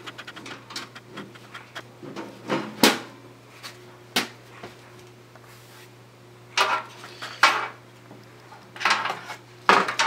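A steel computer case and its side panel being handled. There is a quick run of light ticks at the start, then about half a dozen separate metallic knocks and clatters as the panel comes off and the case is shifted around.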